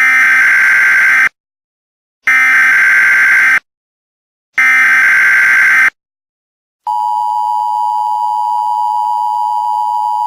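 Emergency Alert System SAME header: three identical digital data bursts, each about a second and a quarter long and a second apart. About seven seconds in, the steady two-tone EAS attention signal starts, announcing that an alert message follows.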